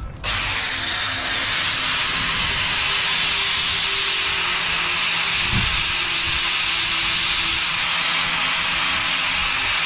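Electric angle grinder starting and running steadily, its abrasive disc grinding the steel end of a RIDGID FlexShaft drain-cleaning cable. The grinding is a steady loud hiss that begins about a third of a second in.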